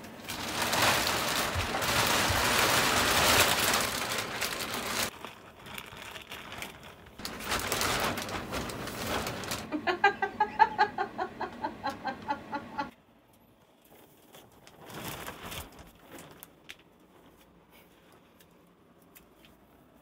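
Large clear plastic moving bag crinkling and rustling as it is handled. About ten seconds in comes a short run of quick repeated pitched calls, about four a second, and the last third is near silence.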